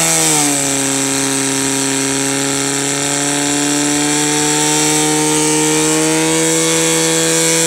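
Portable fire pump engine running flat out, driving water through the attack hoses. Its pitch dips about half a second in as the pump takes up the load, then holds steady and creeps slowly higher.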